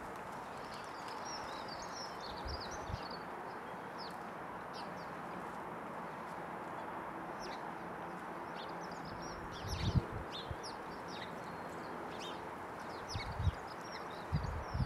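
House sparrows chattering, with many short chirps in quick succession over steady background noise. A few low thumps come about two-thirds of the way through and again near the end.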